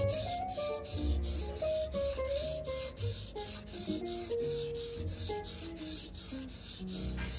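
Camp knife blade scraping back and forth on a whetstone, a rhythmic gritty rasp at about three or four strokes a second. Background music with a melody and bass plays underneath.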